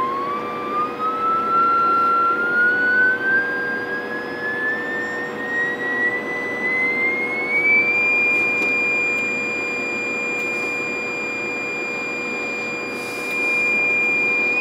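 Sine-wave test tone from an analog audio tone generator, modulating a CB radio's AM signal. The tone rises in pitch from about 1 kHz to about 2.4 kHz over the first eight seconds, holds steady, and starts rising again at the very end. A lower steady tone and a hiss run underneath.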